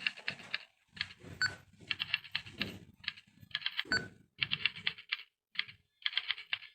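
Typewriter keys clacking in quick bursts with short pauses between, a recorded sound effect played by an audio exhibit.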